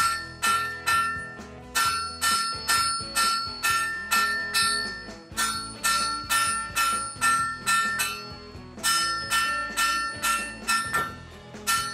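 Hand hammer striking a red-hot steel bar on the face of an anvil, about two to three blows a second with a few brief pauses, each blow leaving the anvil ringing like a bell. The blows are smoothing the lumps out of a freshly drawn-out taper.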